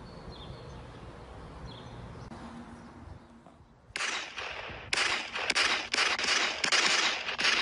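Gunfire: after a few quieter seconds, a rapid run of shots and short bursts starts about four seconds in and keeps going.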